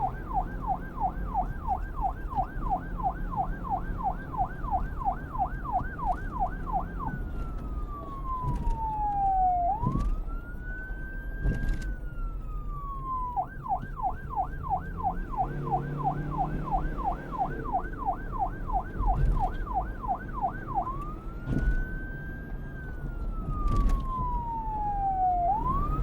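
Police car siren switching between a fast yelp, about three to four sweeps a second, and a slow wail that rises and falls over a few seconds. It yelps, changes to the wail about 7 seconds in, yelps again from about 13 seconds in, and returns to the wail about 21 seconds in, over a low rumble.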